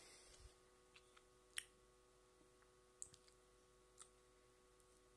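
Near silence: room tone with a faint steady hum and four faint, short clicks spread across a few seconds.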